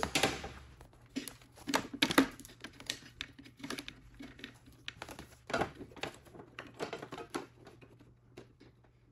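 Irregular small clicks, taps and rustles of hands working clear plastic fuel line onto a snowmobile carburetor's fittings, with a few sharper knocks about two and five and a half seconds in.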